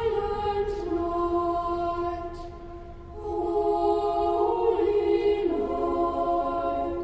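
Slow choral music: voices singing long, steady notes in two phrases, with a brief dip in loudness about halfway through.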